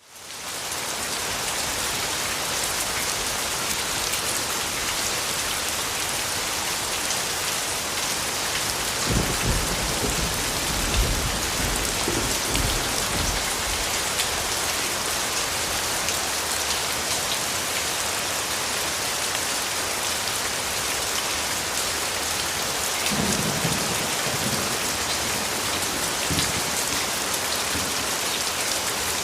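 Steady heavy rain falling on surfaces, fading in over the first second. Low rumbles of thunder swell about ten seconds in and again a few seconds before the end.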